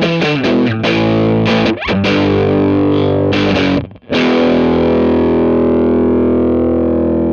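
Overdriven electric guitar on the bridge pickup, played through the Bort 391 valve amp head with a kenotron (valve) rectifier, its output stage in pentode Class AB1 mode. A run of distorted chords is struck, with a brief break about four seconds in, then one chord is left ringing.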